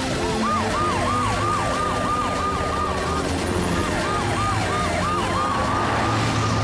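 Emergency-vehicle sirens of a cartoon rescue team: a fast yelp rising and falling about three times a second, breaking off briefly midway, over a longer steady wail.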